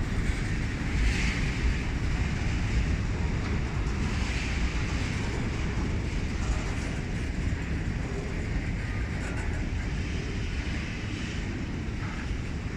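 Freight train rolling by, a steady low rumble.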